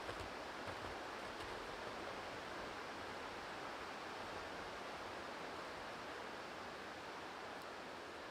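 Steady, even rushing outdoor ambience in a forest, with no distinct events apart from a few faint ticks in the first second.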